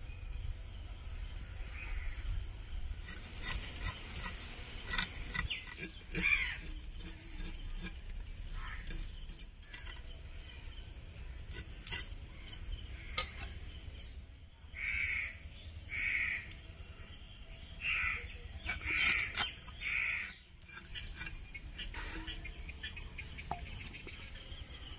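Bhola fish being scaled against a boti's curved iron blade: scattered short scraping clicks and taps over a steady low rumble. A crow caws several times, mostly in the second half.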